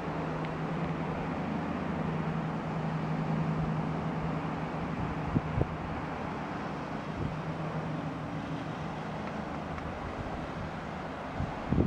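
A motor running at a steady low hum under a wash of wind noise, with a sharp knock about five seconds in and a few more near the end.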